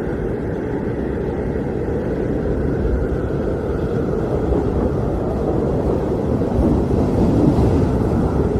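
Blizzard wind blowing hard, a steady low rushing noise with a deep rumble that swells a little near the end.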